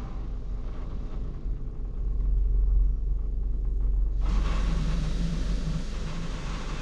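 Automatic car wash heard from inside the car: a steady low rumble, with the hiss of water spray on the body and windshield dropping away at first and then returning suddenly about four seconds in.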